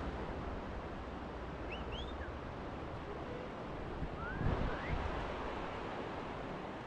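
Steady rush of river water with wind buffeting the microphone. A few short, high rising chirps sound about two seconds in and again just after four seconds, and a brief low thump of wind comes in between them.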